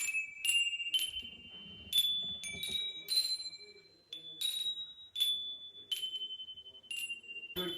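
A set of numbered Christmas-cracker handbells rung one at a time, each bell struck once and ringing a single clear note at its own pitch. About a dozen notes follow one another unevenly, picking out a slow melody.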